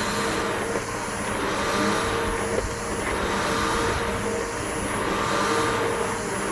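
Bissell BigGreen PowerForce vacuum cleaner running over grass, its motor giving a steady whine while the suction hiss swells and eases every second or so.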